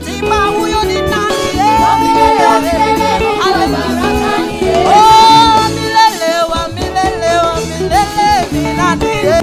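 Live gospel praise music: a woman's lead vocal with a group of backing singers over upbeat instrumental backing, the voice holding high notes a couple of times.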